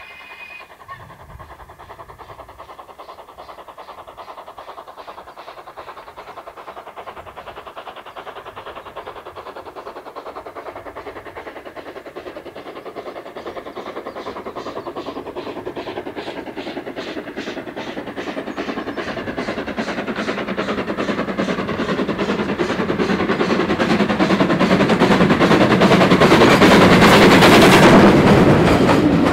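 Ivatt 2MT tank steam locomotive working hard up a gradient with its train: a fast, even beat of exhaust chuffs that grows steadily louder as it comes close, peaking as it passes right by near the end.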